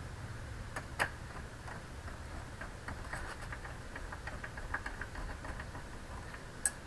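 Scattered small clicks and taps from handling the computer's internal parts: one clear click about a second in, a run of light ticks in the middle and a sharp click near the end, over a low steady hum.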